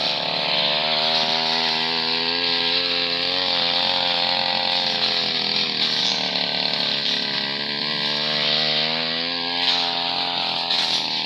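Two-stroke brush cutter running at high throttle while cutting grass, its engine pitch wavering up and down a little with the load.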